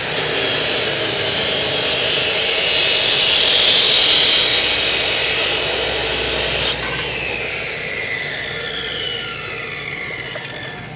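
Dekton DK355 355 mm cut-off saw grinding through several steel box sections clamped together at once: a loud, hissing grind for about six and a half seconds. The cut breaks through abruptly with a clunk, and the motor then winds down with a falling whine.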